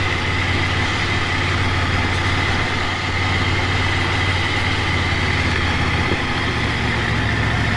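Ducati Monster 797's air-cooled L-twin engine running steadily at low revs while the motorcycle rolls slowly along, its pitch stepping up a little about six seconds in.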